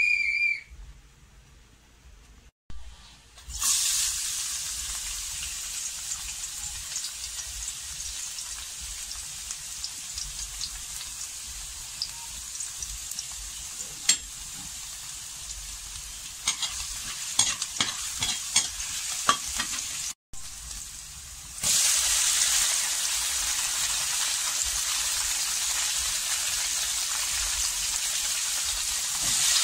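Chopped garlic sizzling in hot oil in a wok, a steady hiss with scattered sharp clicks. About two-thirds of the way through, the sizzle turns clearly louder once tomato wedges are in the pan.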